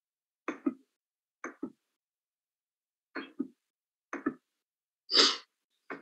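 A person coughing, six short coughs a second or so apart, the loudest and longest one about five seconds in, heard over a video-call connection with dead silence between the coughs.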